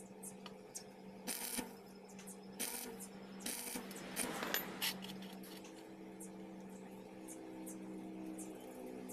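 Stick (arc) welder tacking a steel motorcycle chain to a steel plate: three brief sputters as the electrode is struck, then about a second of crackling arc about four seconds in. A steady low hum runs underneath.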